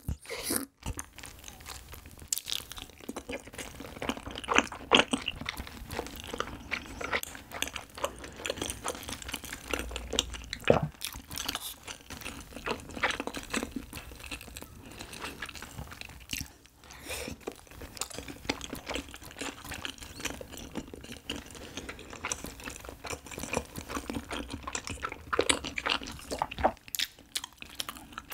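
Close-miked chewing and biting of chewy cheese-filled rice cakes (tteok) in spicy rabokki sauce: irregular wet, sticky mouth clicks and smacks.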